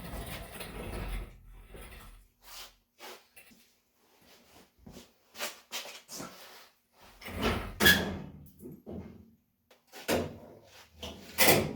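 Scattered knocks and clunks of parts and tools being handled, with a dense clatter over the first couple of seconds and the loudest knocks about eight and eleven and a half seconds in.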